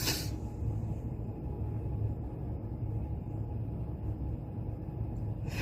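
Steady low room hum while a deep breath is held, with no breath sound. Right at the end a breathy exhale begins.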